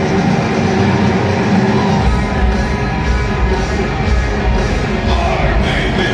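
Live rock band playing loud at a concert, with a singer over guitars and drums; the deep bass comes in about two seconds in.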